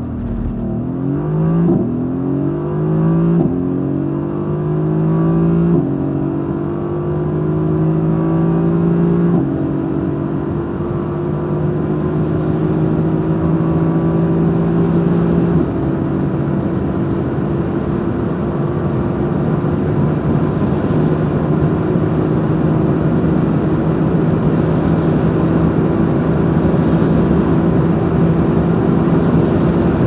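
Mercedes-AMG GT S's twin-turbo 4.0-litre V8 under full-throttle acceleration from a launch-control start, heard from inside the cabin. The engine note climbs and drops back at five upshifts of the seven-speed dual-clutch gearbox, the shifts coming further apart, the last about halfway through; then it holds in sixth gear, rising only slowly as the car nears 280 km/h.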